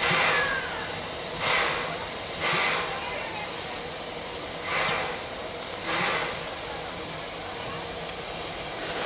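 Narrow-gauge NA class steam tank locomotive standing with steam up: a steady hiss of escaping steam, with short louder gusts of hiss every second or two at uneven spacing.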